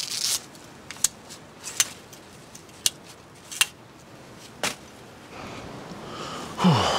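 Folding camp chair being opened: about five sharp clicks and snaps a second or so apart as the metal frame legs are pulled apart, then a louder rustle and creak near the end as a person sits down in it.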